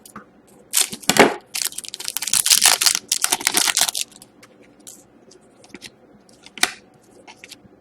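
A hockey card pack's wrapper being torn open and crinkled for about three seconds, followed by faint clicks and taps as the cards are handled.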